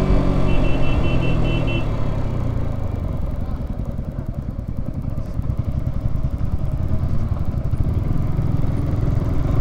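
Yamaha R15M single-cylinder motorcycle on the move: wind rush and low road rumble on the helmet camera's microphone, with the engine's steady note fading away after about two seconds. Between about half a second and two seconds in, a quick run of five short high beeps.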